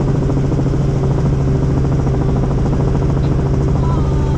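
Helicopter in flight: a loud, steady engine and rotor drone with a constant low hum.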